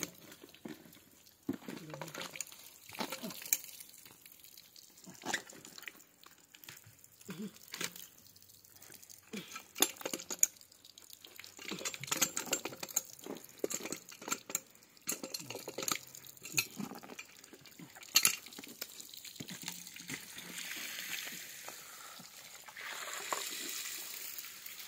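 Irregular clicks and knocks of a steel pipe wrench and plastic compression fittings being worked on black poly water pipe. In the last few seconds, water runs out at the open joint with a steady hiss.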